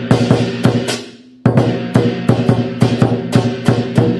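Chinese dragon-dance percussion: a big drum struck together with clashing cymbals in a steady beat of about three strokes a second. The beat breaks off about a second in, then resumes and quickens near the end.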